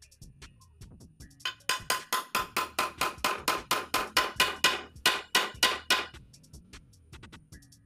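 Hammer driving nails into a wooden frame: a fast, even run of strikes, about four or five a second. The run begins about a second and a half in and stops about six seconds in, with lighter, scattered taps before and after.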